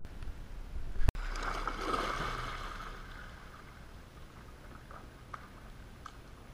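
A sharp click about a second in, then water splashing and churning as a yellow Labrador retriever plunges and swims in a swimming pool, fading to gentle lapping and sloshing.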